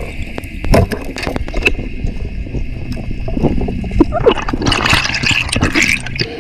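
Underwater sound picked up by a camera in its housing: a muffled steady water hiss with scattered clicks and knocks, and a busier stretch of gurgling and rattling about four and a half seconds in.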